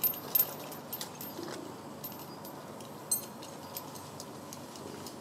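Outdoor background with no chainsaw running: a few sharp clicks, loudest in the first half second and again about three seconds in, over a steady low hiss, with faint bird calls.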